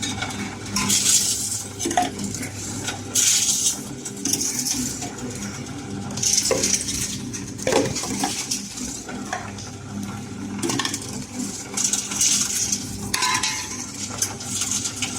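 Empty deposit drink bottles and cans clinking and rattling against each other as they are handled and returned for their deposit, in repeated irregular spells with a few sharp knocks, over a steady low hum.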